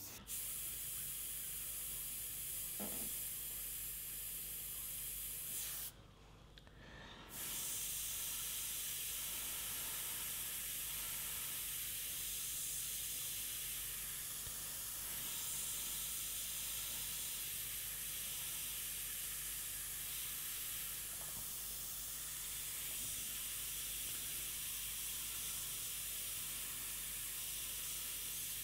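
Compressed air hissing steadily through an Iwata gravity-feed airbrush as the trigger is held to spray paint. The hiss stops for about a second and a half around six seconds in, as the trigger is let off, then resumes.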